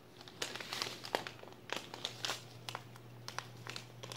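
Plastic fertilizer pouches crinkling and rustling in irregular short bursts as a cat paws and noses at them, over a steady low hum.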